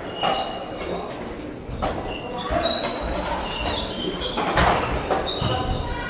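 Athletic shoes squeaking on a sports hall floor in many short, high chirps as badminton players move, with a few sharp knocks that ring on in the large hall.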